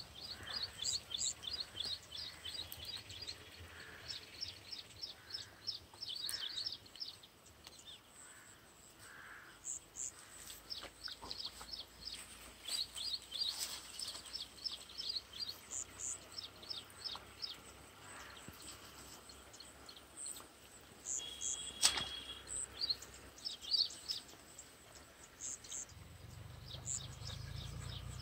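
A bird calling over and over: quick runs of short, high chirps, several a second, each run lasting a couple of seconds. A single sharp click about three quarters of the way through.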